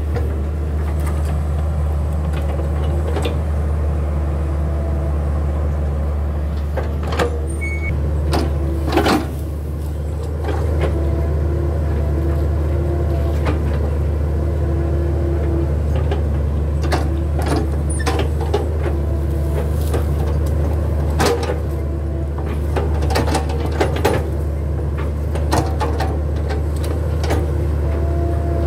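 Hitachi hydraulic excavator digging: its diesel engine drones steadily, with a hydraulic whine that comes and goes as the boom and bucket move. Sharp metallic clanks and knocks from the bucket and arm sound at irregular intervals, a handful of them loud.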